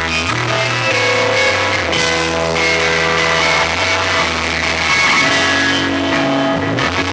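Live rock band playing: electric guitars over a drum kit, with held low notes that change every second or two. The recording is harsh and muddy from the camera's own microphone.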